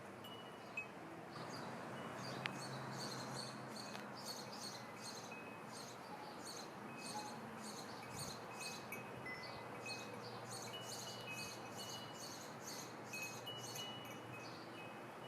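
Glass pearls and glass crystal beads clicking and clinking faintly as they are threaded one by one onto jewellery wire. The small irregular clicks come several times a second, now and then with a brief glassy ring.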